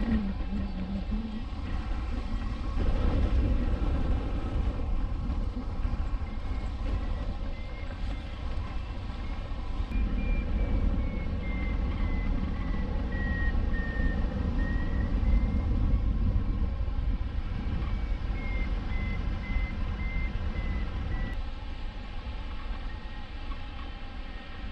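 Wind rushing over the microphone of a camera mounted on a hang glider in flight, a heavy low rumble that swells and eases. Through the middle there is a faint beeping tone whose pitch drifts up and down.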